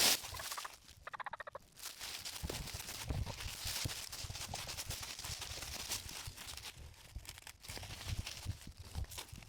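A wild turkey gobbles once about a second in, a quick rattling run of notes lasting under a second. Afterwards, footsteps and rustling in leaf litter.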